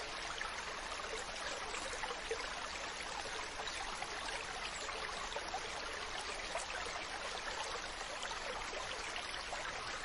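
Running water: a steady, even rush with fine splashing.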